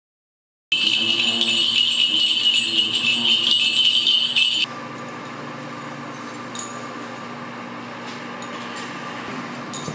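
Small bells jingling continuously for about four seconds, then cutting off abruptly. Afterwards only room noise remains, with a faint steady hum and a few light clinks.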